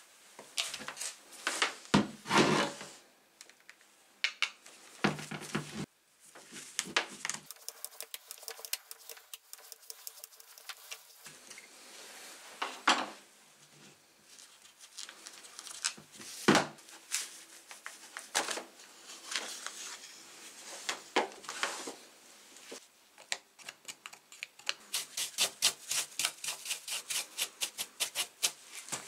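Clicks and knocks of a Bosch GWS 7-115 angle grinder's plastic body being handled in gloved hands. Near the end come quick, regular strokes of a bristle brush being worked over the tool.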